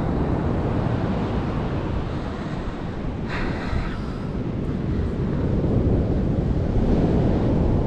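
Surf washing on a beach with wind buffeting the microphone, a steady rumbling wash, with a short brighter hiss a little over three seconds in.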